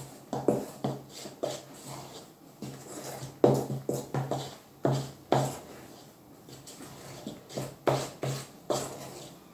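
A utensil stirring thick chocolate cake batter in a stainless steel pot, scraping and knocking against the pot in quick, irregular strokes, a few a second, with short pauses.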